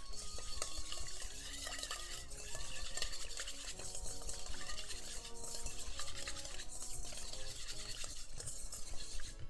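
Wire whisk rapidly beating a small amount of thin oil-and-ponzu dressing in a stainless steel bowl, a fast, continuous scraping and ticking of the wires against the metal.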